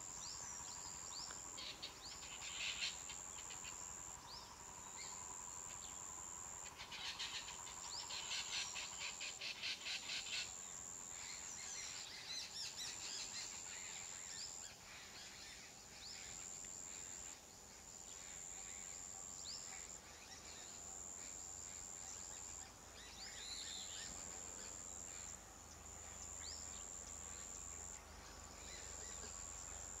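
Woodland ambience: small birds chirping here and there, and an insect's high, steady drone switching on and off every second or two. A rapid run of repeated notes comes from about seven to ten seconds in.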